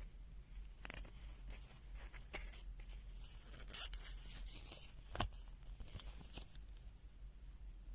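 Faint handling noise: scattered rubs and light clicks, with one sharper click a little after five seconds in, over a steady low hum.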